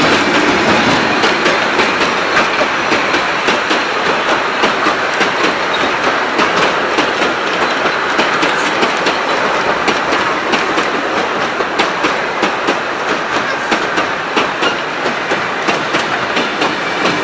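Vintage passenger carriages of a heritage train rolling past at speed: a steady rumble with the rhythmic clickety-clack of their wheels over the rail joints.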